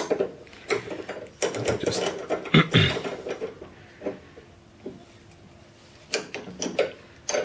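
Steel spanners clicking and clinking on a shock absorber's top nut and lock nut as they are tightened against each other, in irregular clusters with a louder knock near the middle.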